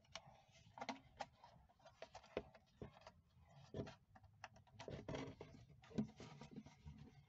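Faint, irregular clicks and taps of plastic being handled as a nylon cable tie is threaded and pulled around a plastic bottle and clear hose.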